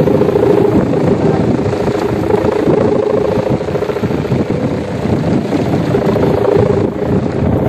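Kite hummer (sendaren), the taut humming bow on a flying kite, buzzing in the wind: a low, throbbing drone that swells and fades as the wind gusts.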